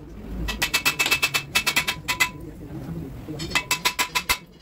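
Quick runs of light metallic clicks with a ringing tone, coming in three bursts, from hand work on a steel truck driveshaft.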